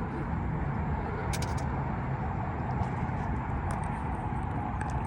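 A steady motor drone, a low rumble with a hum over it, with a few light clicks about a second and a half in.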